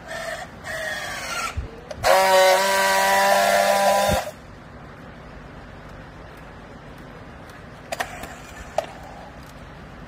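Handheld battery-powered strapping tool working on plastic baling strap: a motor whine rises in pitch twice as it tensions the strap, then a loud, steady buzz lasts about two seconds as it seals the strap by friction welding. Two sharp clicks come near the end.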